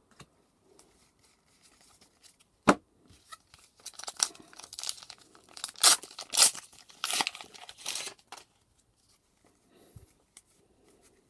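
A foil trading-card booster pack being torn open and its wrapper crinkled: a run of sharp rips and crackles from about four seconds in to about eight seconds, loudest in the middle. A single sharp tap comes a little before the tearing.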